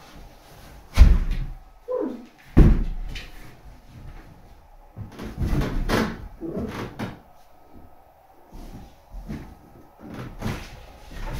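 Latex balloons being handled: two sharp, loud bangs about one and two and a half seconds in, then a run of smaller squeaks, rubs and bumps as the balloons are pushed around.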